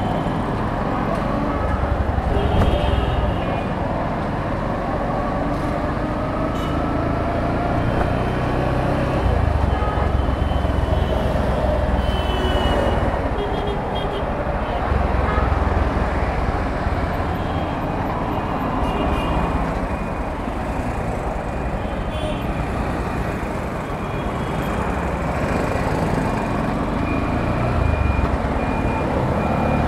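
Busy city road traffic heard from a moving motorbike: vehicle engines running with tyre and road noise, and short horn toots now and then.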